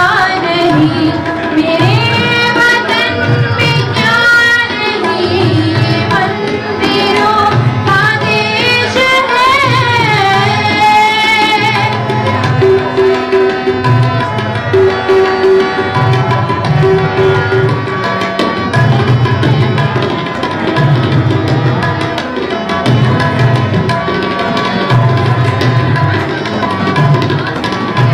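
Indian vocal music: a woman sings an ornamented, gliding melody, accompanied by harmonium and a steady tabla rhythm. About twelve seconds in, the voice drops out and the harmonium's held notes and the tabla carry on.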